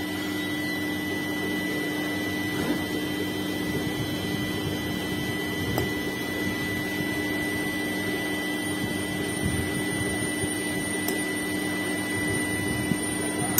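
A fan running with a steady whirring hum, with a few faint light ticks over it.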